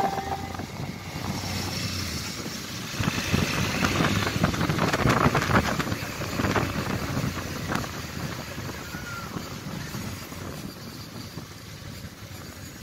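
Wind buffeting the microphone on a moving Suzuki V-Strom DL650, with the bike's V-twin engine running underneath. The rush swells about a third of the way in and then eases off near the end as the bike slows.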